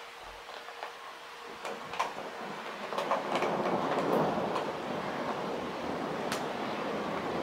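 Torrential thunderstorm rain falling, with scattered drops tapping close by; the downpour grows louder a couple of seconds in and then holds steady.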